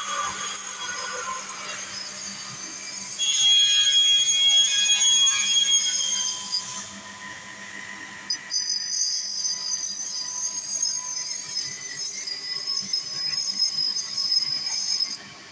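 Grinding disc of a saw-sharpening machine running against the teeth of a circular panel-saw blade, a shrill, high-pitched grinding whine. It grows louder about three seconds in, eases off around seven seconds and changes tone about eight and a half seconds in.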